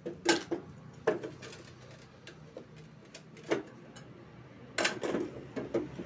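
Handling noises from small electrical parts being moved and set down: a few sharp clicks and knocks, a couple about a second in, one in the middle and a quick cluster near the end, over a low steady hum.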